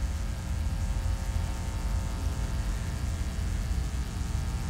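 Steady low rumble with a faint electrical hum and hiss: background noise of a hall's sound system and ventilation, with no distinct events.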